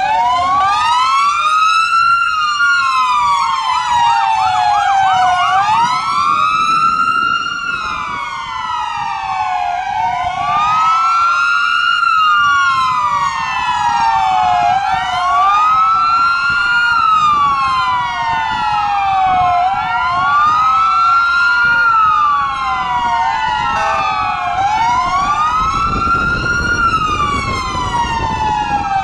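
Sirens of several Romanian police Dacia Logan patrol cars in convoy, wailing out of step with one another, each slowly rising and falling over a few seconds. About four seconds in, one switches briefly to a fast yelp. Road and engine rumble runs underneath.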